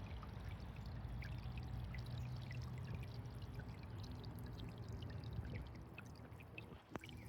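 Small solar fountain pump spraying water upward through a nozzle attachment, the spray splashing and pattering back into the water, over a steady low hum.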